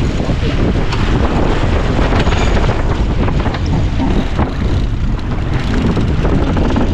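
Steady wind buffeting the microphone aboard a Farr 280 sportsboat under sail, with the rush of water along the hull and scattered faint clicks.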